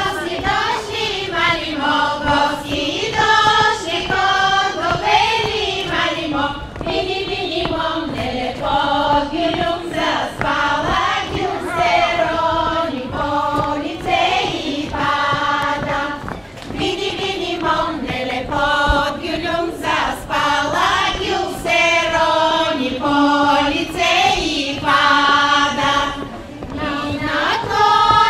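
Bulgarian women's folk choir singing unaccompanied, the melody rising and falling in short phrases.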